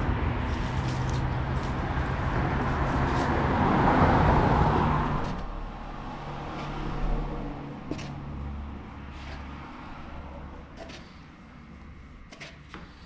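A motor vehicle's engine passing close by, growing louder to about four seconds in, then fading, leaving quieter street noise with a few clicks.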